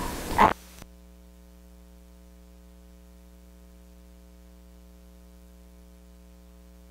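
A brief loud burst of noise about half a second in, then the background cuts off abruptly. A faint, steady electrical mains hum is left.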